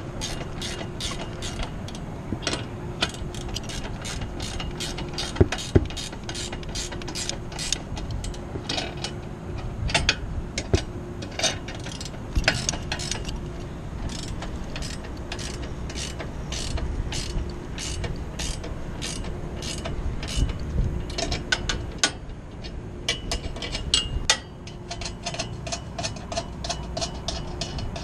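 Hand ratchet wrench clicking in quick, evenly spaced strokes, in runs with short pauses, as bolts on a steel antenna mount are tightened. A couple of louder metal knocks come about five and a half seconds in.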